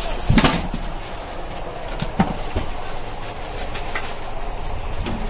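Packaging being handled during an oven unboxing: bubble wrap crinkling and a polystyrene foam insert being pulled out of a cardboard box. There are a few sharp crackles, the loudest about half a second in, over a steady background hum.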